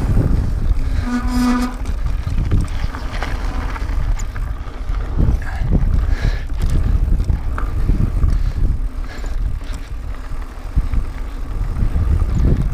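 Mountain bike rolling fast down a dry dirt trail: wind buffeting the action-camera microphone and tyres rumbling over the dirt, with scattered clicks and rattles from the bike over bumps.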